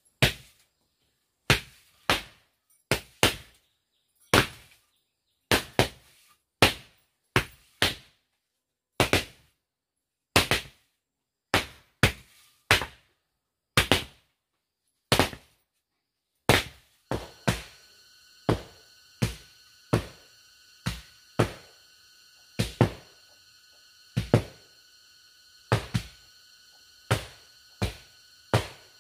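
Split bamboo paddles beating a bare earth floor to tamp it down: dull thuds at roughly one a second, sometimes two close together as the two beaters overlap. A steady high ringing hum joins about halfway through.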